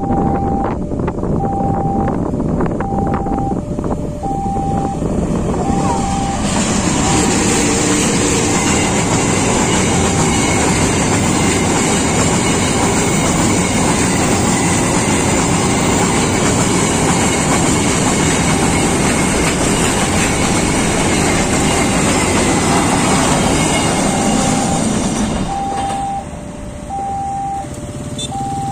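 Diesel-hauled freight train of hopper wagons passing close by: the locomotive's engine approaches during the first few seconds, then the wagons roll past with a loud steady rumble and clatter and a faint high wheel whine, easing off a few seconds before the end as the last wagons go by. A two-note electronic warning tone alternates at the start and again near the end.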